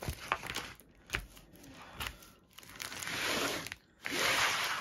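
Clear plastic film and small plastic drill bags of a diamond painting kit crinkling as they are handled: a few light taps and rustles at first, then two longer spells of crinkling near the end.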